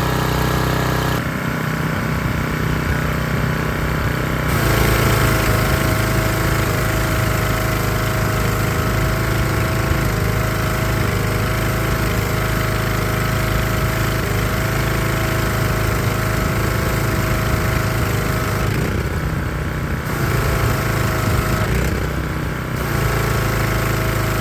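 Troy-Bilt 2800 PSI pressure washer's 190cc overhead-valve engine running steadily at full speed while the pump drives a spray of water. The sound shifts about a second in, gets louder from about four and a half seconds in, and dips briefly twice near the end. The engine is running as it should, with its choke now fully open after the choke linkage was straightened.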